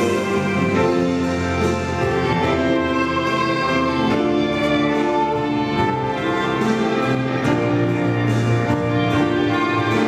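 Classical music on bowed strings, violins carrying a melody of held notes.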